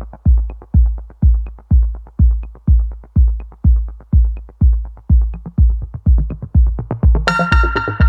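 Electronic background music: a steady kick-drum beat at about two beats a second with light hi-hat ticks, joined by a bright synthesizer chord about seven seconds in.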